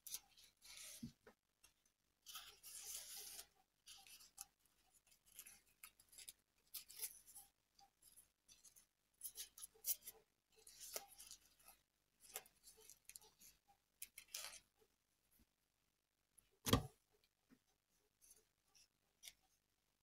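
Faint rustling of satin ribbon being pulled and wrapped by hand around a heart frame, in short scattered swishes. One soft knock comes about three-quarters of the way through.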